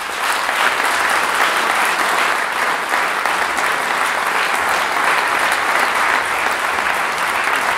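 Large audience applauding steadily, a dense, even sound of many hands clapping at once, in thanks after a dance performance.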